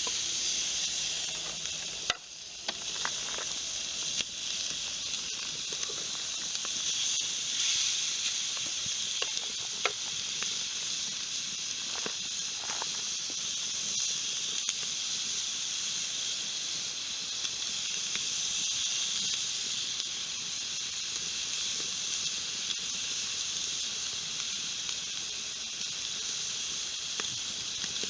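Steak sizzling steadily over a campfire, a constant high hiss with a few scattered pops and crackles.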